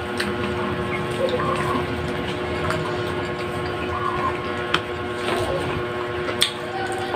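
A steady mechanical hum with several held tones, with a few sharp clicks and smacks of people chewing food eaten with their hands.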